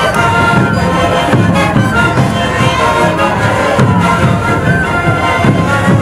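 A sikuri band playing: many Andean panpipes (sikus) sounding together over a steady bass drum beat.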